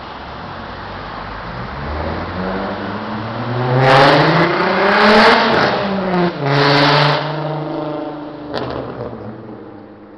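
Road traffic: a motor vehicle passing close by on the street, its engine note rising as it approaches and then falling away. It is loudest from about four to seven seconds in, with a brief drop in the middle, and a short sharp click follows near the end.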